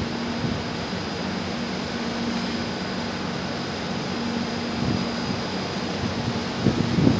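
TCDD E23000 electric multiple unit running on distant tracks: a steady hum with a faint high whine over a wash of noise, with a few low thumps near the end.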